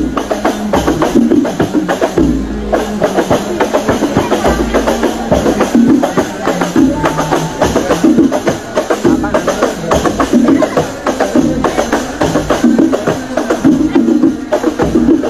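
Live percussion music with a steady rhythm of dense drum strokes and tambourine-like jingles, over a recurring deep bass-drum thump.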